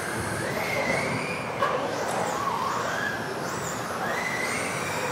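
Electric RC off-road buggies racing, their motors and drivetrains whining in several overlapping tones that rise and fall in pitch as the drivers work the throttle.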